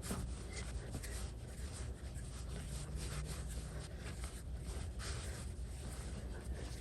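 Hands kneading esfiha (flatbread) dough, giving soft irregular rubbing and pressing sounds over a steady low hum.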